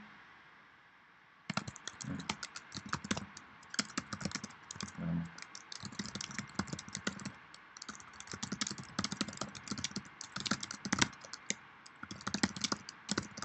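Typing on a computer keyboard: a quick, uneven run of keystrokes that starts about a second and a half in and goes on with only brief pauses.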